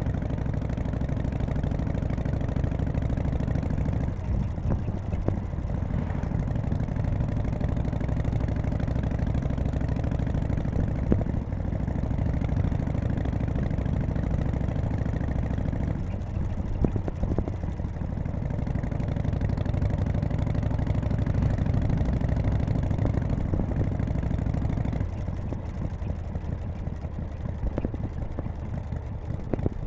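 1991 Harley-Davidson Softail FXSTC's 1340 Evolution V-twin running during a ride. The engine note shifts a few times and drops lower and quieter near the end.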